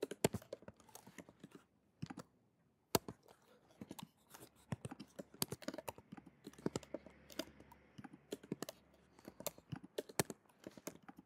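Typing on a computer keyboard: quick, irregular keystrokes, with a short pause about two seconds in.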